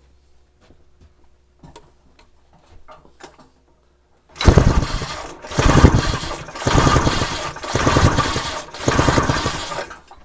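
Rotax 503 two-stroke twin engine cranked over for a compression test on its PTO-side cylinder: five loud bursts of about a second each, back to back, starting about four seconds in. Light handling clicks come before them.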